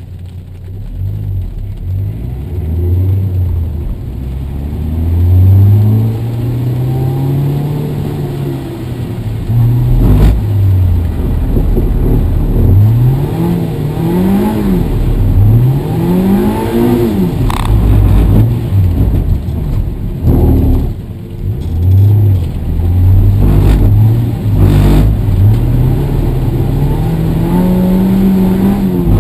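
Car engine revving up and down several times, its pitch climbing and falling, with a few short sharp knocks in between. The car is one that its owner says makes a strange noise.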